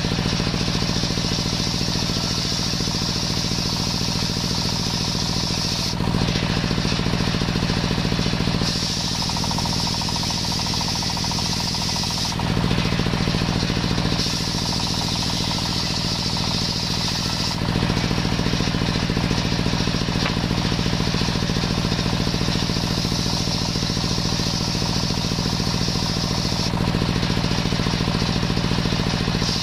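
Large belt-driven table circular saw running continuously while ripping young coconut wood into beams, its drive humming steadily under the hiss of the blade cutting. The tone and loudness shift abruptly several times as boards are fed through.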